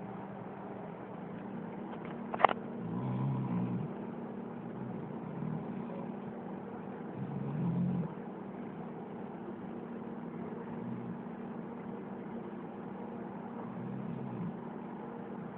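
Dog snoring: a low, rumbling snore roughly every four seconds, some strong and some faint. A single sharp click about two and a half seconds in.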